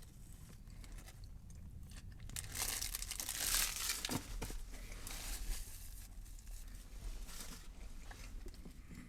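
A sandwich wrapper crinkling and rustling, loudest about three to four seconds in, with small clicks and some chewing.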